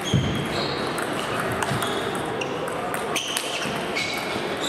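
Table tennis rally: a plastic ball clicked back and forth by rubber-faced bats and bouncing on the table, with a dull thump just after the start. Short high squeaks come and go over the steady chatter of a large, busy hall.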